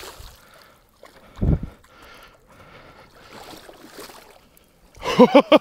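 A northern pike thrashing and splashing in shallow water as it is landed by hand, with one loud splash about a second and a half in. A man's voice exclaims near the end.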